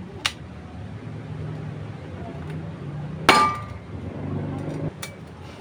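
Hammer blows on a small metal piece held in pliers against sheet metal: three strikes. The loudest comes about three seconds in and rings briefly.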